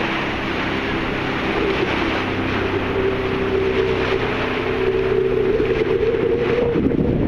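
A boat engine running steadily, a drone whose pitch creeps slightly upward. Wind buffets the microphone, gusting near the end.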